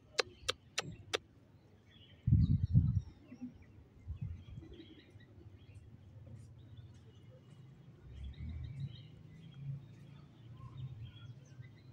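Outdoor ambience: scattered faint bird chirps over a low steady hum. Four sharp clicks in the first second, then a short, loud low rumble a little after two seconds in.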